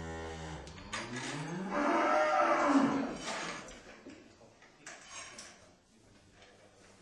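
Cattle mooing. A low moo trails off about a second in, then a louder moo rises and falls in pitch from about two to three seconds in, with fainter scattered noises after it.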